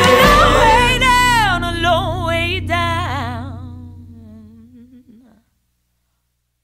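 The closing bars of a song: a wordless, hummed voice with a wide vibrato slides down in pitch over a held low note and fades away, gone by about five seconds in.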